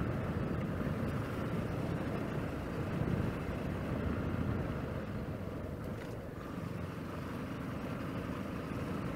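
Yamaha Lander 250's single-cylinder engine running steadily while the motorcycle is ridden on a dirt road, easing off slightly about six seconds in.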